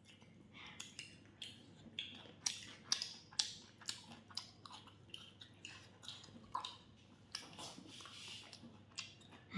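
Chewing and biting into fried chicken: an irregular string of soft, wet mouth clicks and smacks.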